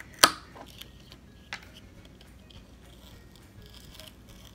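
Carving knife cutting small chips from a wooden figure: a sharp snap about a quarter second in, another about a second and a half in, and faint scraping ticks between.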